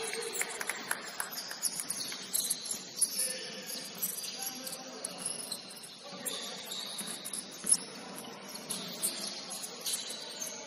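Sneakers squeaking on a hardwood basketball court during play, short high chirps scattered throughout, with a single sharp knock about three quarters of the way through, in a large gym.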